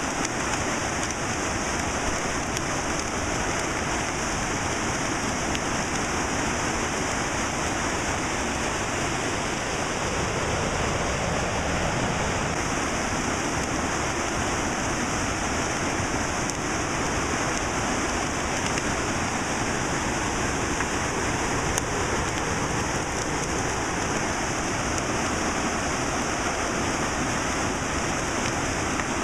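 Steady rushing of turbulent whitewater churning past rocks.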